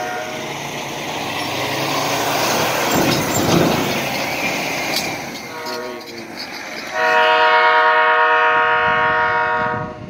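The air horn of Ontario Southland locomotive 1400 sounds a chord of several tones: a long blast ending about half a second in, a short blast near the middle, and a long, loudest blast from about seven seconds that stops just before the end. Between the blasts there is a rushing noise, loudest about three to four seconds in.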